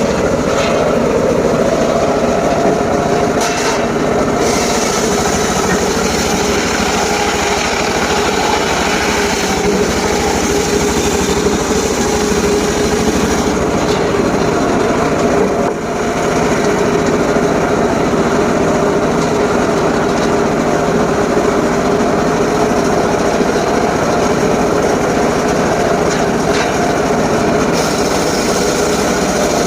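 Engine-driven mobile circular sawmill running steadily while its blade saws a teak log, with a brief drop in level about sixteen seconds in.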